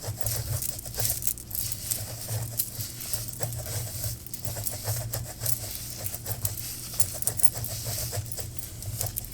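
Gloved hands working deep conditioner through hair: a dense, irregular stream of small crackling and rubbing sounds.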